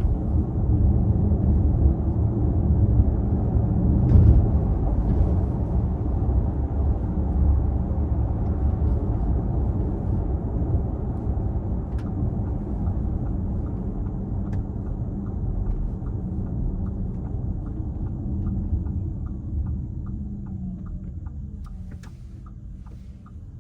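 Inside the cabin of an Audi Q4 e-tron at speed: steady low road rumble with a droning buzz that seems to come from the front of the car, a fault the owner cannot yet identify. In the second half a steady ticking comes in at about two ticks a second, and near the end the rumble eases with a falling whine as the car slows.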